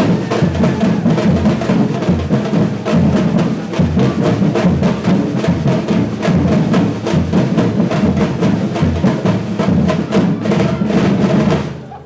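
Batucada ensemble of Brazilian percussion playing a dense samba groove: deep bass drums on a steady pulse under many sharp, fast drum and wood strikes. The playing drops away briefly near the end.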